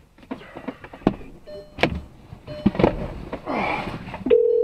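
Knocks, clicks and rustling inside a car's cabin, then near the end a loud steady telephone tone as an emergency call connects through the car's phone system.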